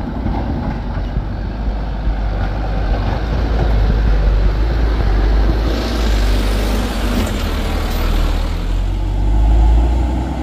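Mitsubishi Fuso Canter light truck's diesel engine climbing a steep, rutted grade, a steady low rumble, with a rush of hiss as the truck passes close about six seconds in.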